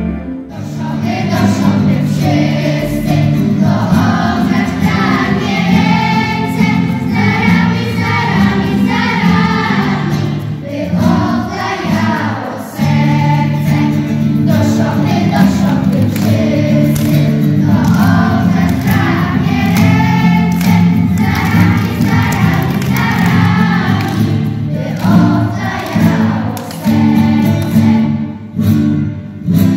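Choir singing a Polish Christmas carol (kolęda), with sustained low accompanying notes underneath.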